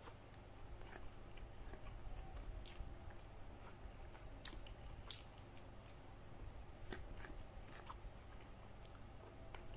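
Close-up chewing of a person eating rice by hand, with irregular sharp mouth clicks and smacks.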